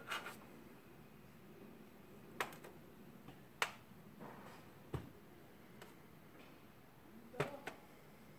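Small carburettor parts clicking and tapping against each other and a metal tray as they are handled, about eight sharp clicks at irregular intervals, two of them close together near the end.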